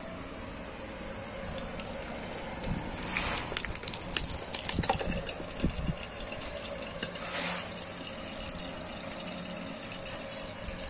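Battered milkfish (bandeng presto) frying in hot oil in a small electric frying pan: a steady sizzle that swells louder about three seconds in and again about seven seconds in. A few low knocks come from the lid and tongs.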